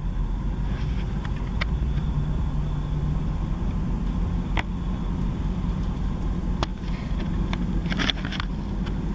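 Class 158 diesel multiple unit running at speed, heard from inside the carriage: a steady low rumble of engine and wheels on the rails, with a few sharp clicks and knocks scattered through it.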